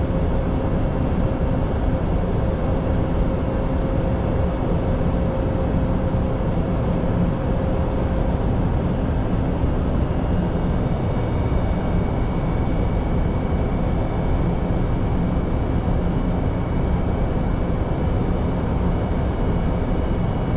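Steady in-flight flight-deck noise of an Airbus A320neo: an even rumble of airflow and engines. A faint steady tone fades out about eight seconds in, and a higher faint tone comes in a few seconds later.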